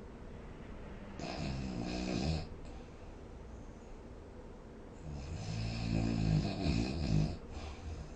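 Snoring: two snores over a steady low hiss, a shorter one about a second in and a longer, louder one about five seconds in.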